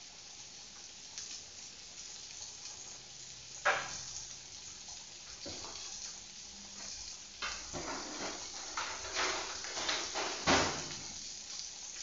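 Cooked beans frying in a steel pan with a faint steady sizzle. Sharp knocks and clatter of kitchen containers being handled come over it: one loud knock about four seconds in and a run of knocks between seven and eleven seconds.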